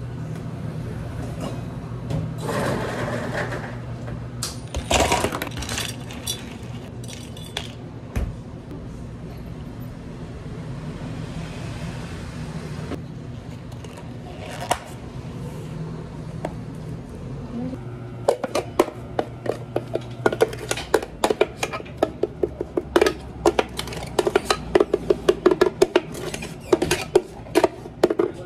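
Café counter work on iced drinks: clear plastic cups and lids handled on a steel counter over a steady low machine hum, with a few pours and clicks. In the second half, a quick, dense run of sharp clatter and knocks as a green tea frappe is worked from a blender jar into a cup with a spoon.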